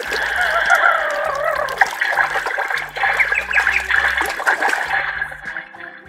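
Water splashing and bubbling, a swimming-pool sound effect, steady and fading out near the end.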